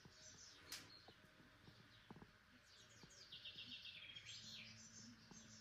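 Near silence with faint birdsong: high chirps, including a quick run of repeated notes about three to four seconds in. There is a single faint click under a second in.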